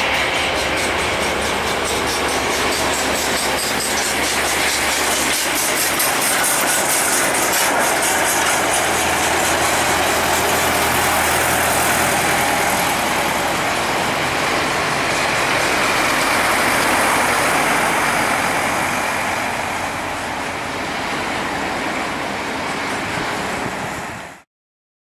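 Airbus A320-214's twin CFM56 turbofan engines at takeoff thrust: a loud, steady jet roar with a low hum under it as the airliner rolls down the runway and climbs away, swelling a little toward the middle and fading slightly before it cuts off suddenly near the end.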